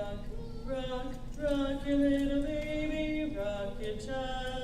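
An a cappella vocal group singing in close harmony, holding long sustained chords.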